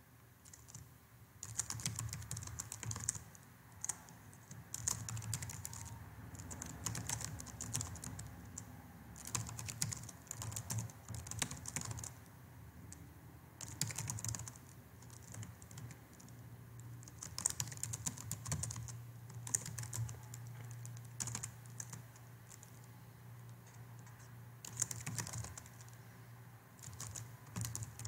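Typing on a computer keyboard: quick runs of key clicks lasting a second or two, broken by short pauses.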